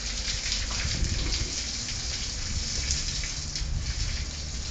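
Water spraying from a hose and splashing onto a wet concrete floor: a steady hiss of spray and spatter.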